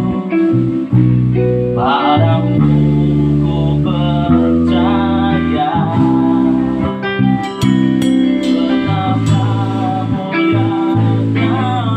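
A band playing: guitars over bass guitar, keyboard and drums, with long held notes and a lead line that wavers in pitch.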